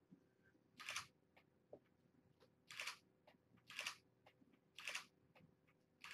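DSLR camera shutter firing five times, roughly a second apart, each a short click.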